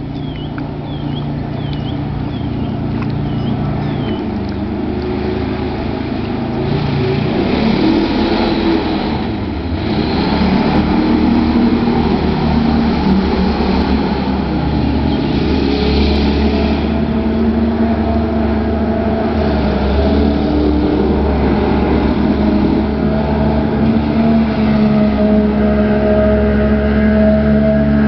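Subaru car engine in a small jet boat running hard, its pitch rising and falling several times as the boat accelerates, turns and passes, growing louder as it comes closer.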